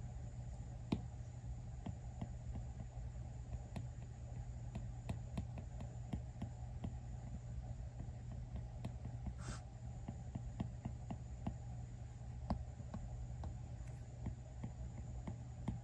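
Apple Pencil tip tapping and stroking on the iPad's glass screen: light, irregular clicks, several a second, while sketching, over a steady low hum.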